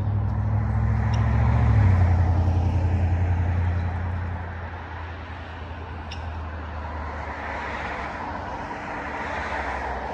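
A motor vehicle's engine running with a strong low hum that shifts in pitch about two seconds in and fades by about four seconds, followed by a softer steady rushing noise that swells slightly twice near the end.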